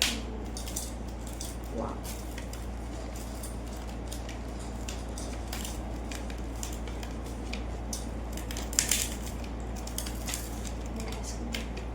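Scattered small clicks and wet squishes of food being handled and eaten close to the microphone, over a steady low hum, with one louder click about nine seconds in.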